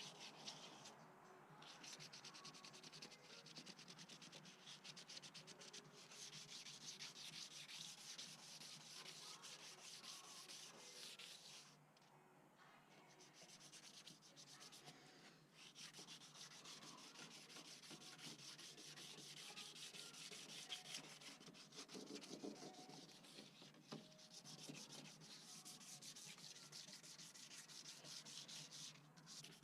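Hand wet sanding of painted car door jambs with 400-grit paper, scuffing off the gloss before repainting: a faint, steady scrubbing with brief pauses, the longest about twelve seconds in.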